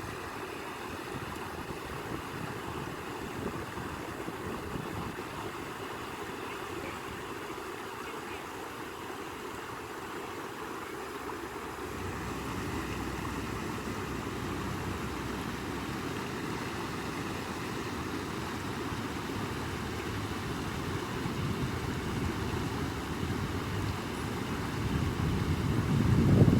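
Steady rushing of flowing water. It grows fuller about halfway through and swells louder near the end.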